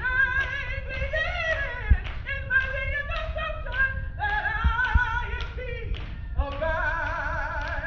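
A woman singing a gospel praise song solo into a handheld microphone, holding long notes with vibrato toward the end. A few short low thumps come through during the singing.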